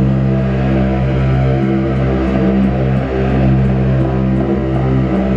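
Live improvised drone music: a loud, dense layer of held low tones that shift slowly.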